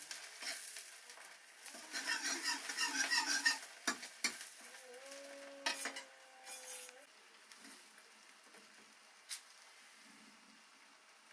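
Food frying in oil in a steel wok over a wood fire, with a steel spoon stirring and clinking against the pan and a small steel bowl. The loudest clatter comes about two to three seconds in, followed by a few single clinks, and the second half is quieter.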